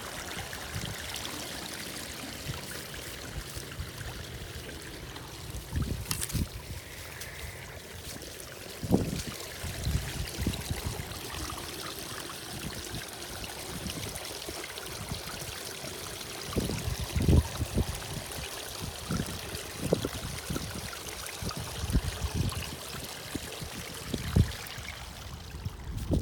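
Pond water running and trickling steadily at a spillway drain, with scattered short low thumps.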